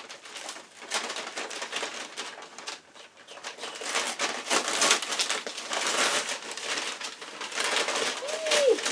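White paper wrapping crinkling and rustling in irregular bursts as it is pulled and peeled off a potted plant, with a short tone that rises and falls near the end.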